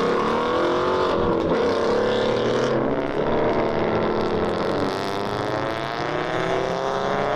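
Car engines revving and accelerating, their pitch climbing, dropping back and climbing again in long sweeps.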